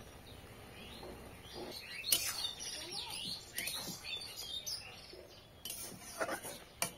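Small birds chirping, with a few knocks and scrapes of a metal spatula in a wok as the curry is stirred.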